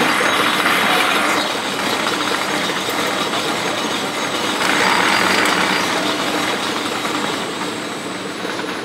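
Production-line machinery running with a steady, rapid mechanical clatter, louder and brighter for about the first second and a half and again around five seconds in.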